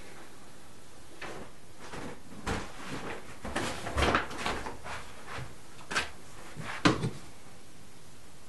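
Soft footsteps across a bathroom and a wall cabinet above the sink being opened, with a few scattered knocks and clicks as things are moved about inside, the sharpest about six and seven seconds in.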